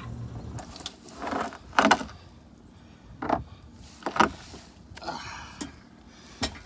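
Engine oil drain plug being unscrewed by hand and pulled, with oil splashing into a plastic drain pan: a string of separate knocks and rustles, the sharpest about two and four seconds in.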